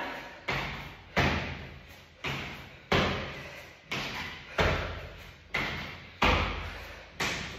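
Repeated heavy thuds of workout impacts on the floor, in a steady rhythm of pairs: two thuds about 0.7 s apart, the pair repeating about every 1.7 s, each thud ringing out briefly.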